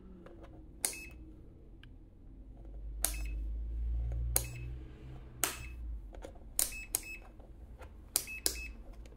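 Rotary selector switch of an AstroAI DM130B digital multimeter clicking through its detents as the dial is turned, with about eight sharp clicks at irregular spacing. A low rumble comes in around the middle.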